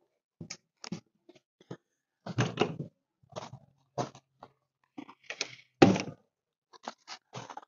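A series of short knocks, clicks and thuds at irregular spacing, the loudest about six seconds in.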